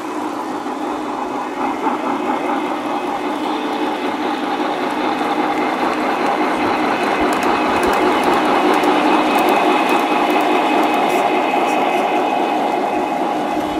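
1/4-inch-scale (O gauge) three-rail model train rolling past on metal track: the locomotive and freight cars run with a steady rumbling whine that builds to its loudest about eight to ten seconds in, with light clicking mixed in.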